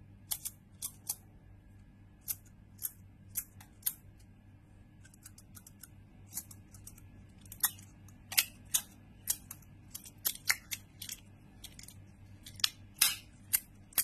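Haptic slider fidget toy with a Zircuti (zirconium-titanium damascus) body and a zirconium magnetic bullet, clicking sharply as it is slid back and forth in the fingers. The clicks come in irregular pairs and clusters, sparse at first and louder and more frequent in the second half.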